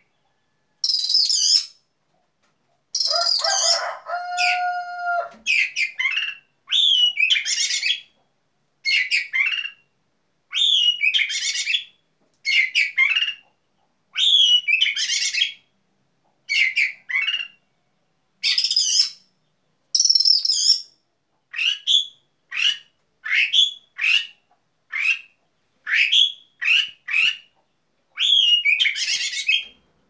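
Oriental magpie-robin (kacer) singing: a long string of short, varied whistled and chirped phrases, each about a second or less, with brief pauses between them. A lower-pitched call is mixed in about three to five seconds in.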